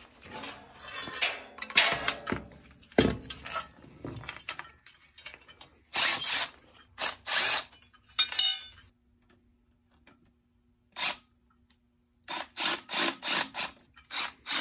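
Cordless driver running in several short bursts to take the screws out of a blower motor's mounting bracket, with clatter from handling the motor and bracket. Near the end comes an even run of short strokes, about three a second.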